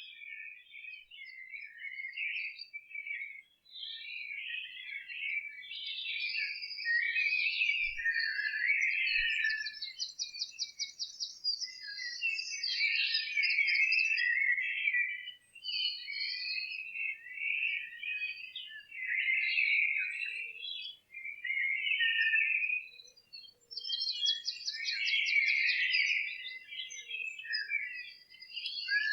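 English spring dawn chorus: many songbirds singing at once in overlapping chirps and warbles, with a fast trill of rapidly repeated high notes standing out twice.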